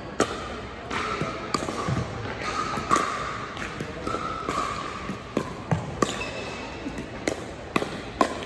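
Pickleball rally on a hardwood gym court: about a dozen sharp pocks at uneven spacing as paddles strike the plastic ball and it bounces on the floor, with sneakers squeaking on the court now and then.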